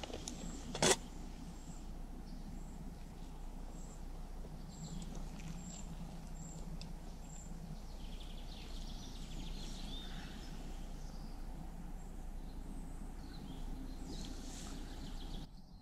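Making pour-over coffee at a camping stove: a sharp metal clink from the pot about a second in, then hot water poured from the pot over a coffee filter for a few seconds, over a steady low outdoor background with faint bird chirps.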